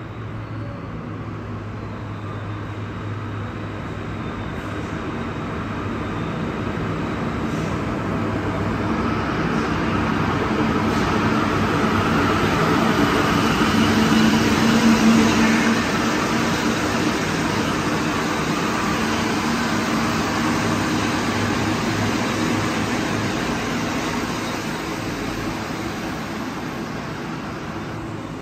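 Alstom NS-16 rubber-tyred metro train passing through a station without stopping: a steady rumble and hum that swells over about fifteen seconds, peaks, and fades as the train moves away.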